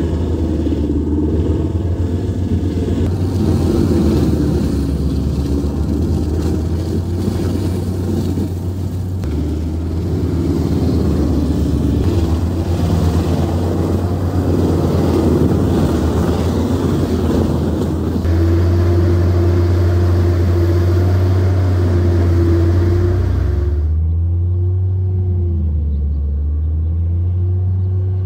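Prinoth Raptor 800 tracked forestry mulcher, a 630 hp machine, working under load as its rotor head shreds orchard trees: a heavy, steady engine drone under dense grinding. Near the end the grinding stops abruptly, leaving the engine hum, whose pitch sags and recovers twice.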